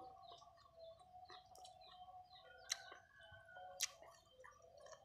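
A metal spoon clicks sharply twice against a metal tray while flaking cooked fish, with a few softer taps and faint bird calls behind.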